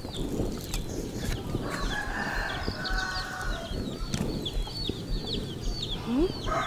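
A rooster crowing, one call held for about two seconds starting near two seconds in, with small birds chirping in quick high notes and a few light clicks of hands and a knife at the table.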